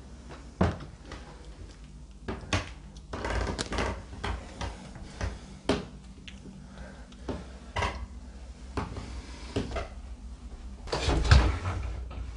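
Footsteps and scattered knocks on wooden stairs and floorboards, coming irregularly, with the loudest cluster of thumps near the end.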